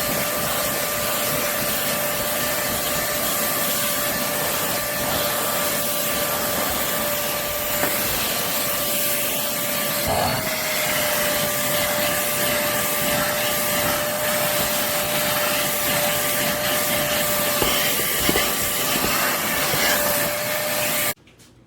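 Intercleaner corded stick vacuum running steadily: a rush of air with a steady motor whine, cutting off suddenly near the end.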